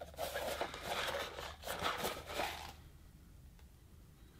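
Zipper of a small hard-shell carrying case being run open, with the case's fabric shell rubbing in the hands, a scratchy rasping for about three seconds.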